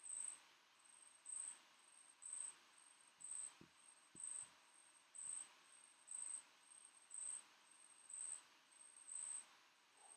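Faint cricket chirping over near-silent room tone: one high-pitched chirp about once a second, very evenly spaced.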